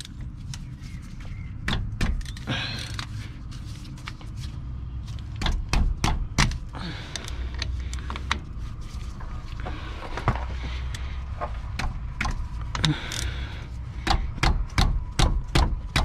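Scattered metal clicks and knocks of hand tools working the caliper bolts on a truck's front brake, over a steady low rumble.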